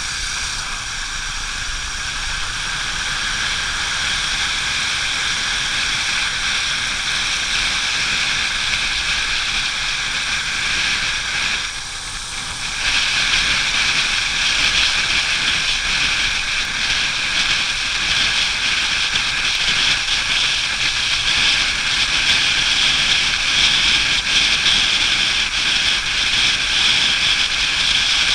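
Motorcycle riding on a wet road: a steady rush of wind, engine and tyres on wet asphalt. It dips briefly about halfway through, then runs louder.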